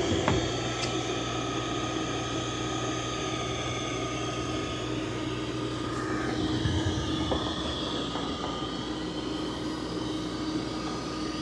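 Dreame Matrix 10 robot vacuum-mop running, a steady fan whir with a constant high whine over it. There are a couple of light clicks right at the start.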